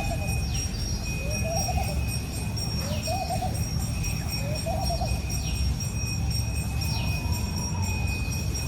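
Repeated short wavering animal calls, about one every second, with falling whistles between them, over a steady low rumble and a steady high ringing tone.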